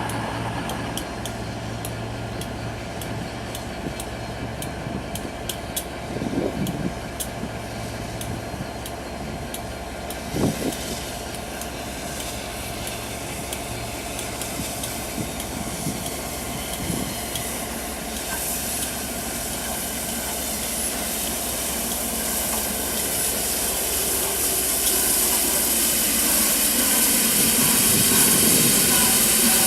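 Steam hissing from the Peppercorn A1 Pacific steam locomotive 60163 Tornado, growing steadily louder through the second half. Underneath, a steady low hum stops about halfway through, and there are a few short knocks in the first half.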